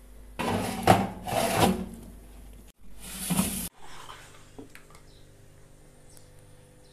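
Metal baking tray scraping and rattling as it is slid into the oven, in two loud scrapes of about two seconds and one second, each ending abruptly.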